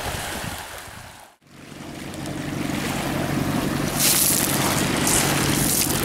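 Small waves lapping on a pebble shore with wind on the microphone; after a brief dropout about a second in, a motorboat's engine drones steadily out on the water, with gusts of wind on the microphone near the middle.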